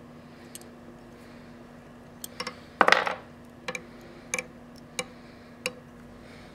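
Light clicks and taps from fly-tying tools being handled at the vise, with a louder short scraping rustle about three seconds in.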